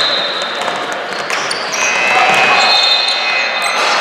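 Basketball bouncing on the court during play, with players' indistinct voices.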